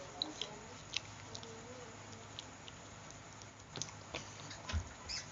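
Mouth sounds of eating rambutan: scattered small wet clicks and smacks of chewing, over a low steady hum.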